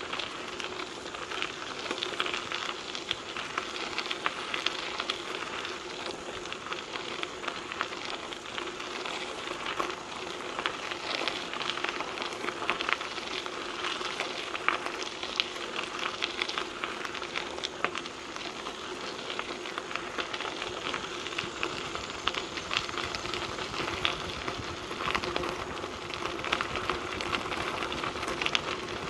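Trek 4500 mountain bike's tyres crunching steadily over a gravel trail, a dense crackle of small stones.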